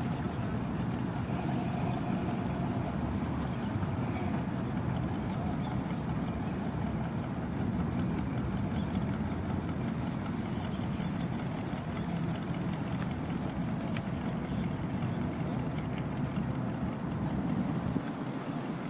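Vintage Chevrolet pickup truck's engine running steadily at low revs as the truck rolls slowly by.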